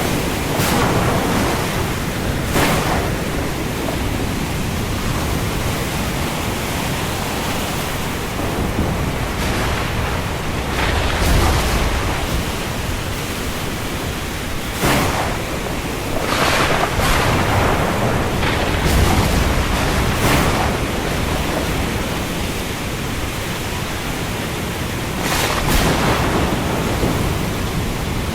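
Heavy rain falling on the open sea: a steady dense hiss with brief louder surges several times.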